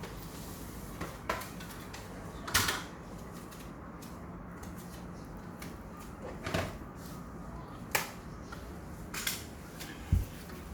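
About six sharp, irregularly spaced knocks and clacks of tools or materials being handled, the last a heavier low thud near the end, over a steady low background hum.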